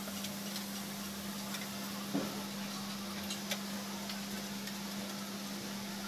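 Scattered light metallic clicks from a long wrench being worked on a truck power steering gear box, over a steady low hum.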